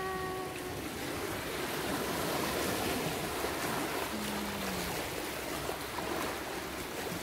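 Small waves washing on a sandy shore, a steady hiss of surf.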